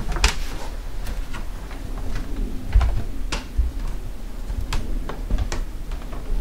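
Footsteps: uneven sharp clicks, one or two a second, with dull low thumps under them.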